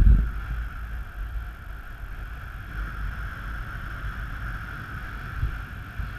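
Wind blowing over the camera microphone during paraglider flight in a strong sea breeze. A low buffeting rumble peaks in a gust right at the start, with a steady higher hiss of airflow above it.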